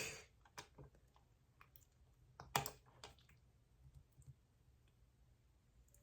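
A few faint, scattered clicks of a computer mouse over near silence, the loudest about two and a half seconds in.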